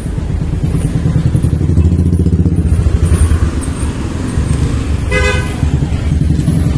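Busy street traffic: vehicle engines, motorcycles among them, pass close by with a low rumble that swells about two seconds in. A short vehicle horn toot sounds about five seconds in.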